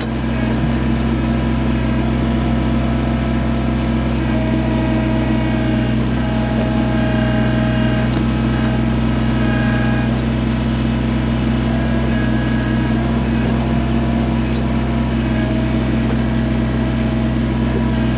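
Kubota BX23S tractor-loader-backhoe's diesel engine running steadily while the backhoe works, with a higher whine that comes and goes.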